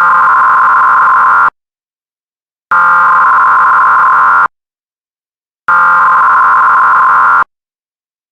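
Emergency Alert System digital data tones (SAME burst): three loud, harsh electronic bursts, each about a second and a half long, separated by about a second of silence.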